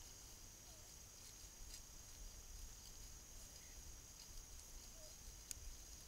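Near silence: faint rural ambience with a steady high-pitched hiss and two faint clicks.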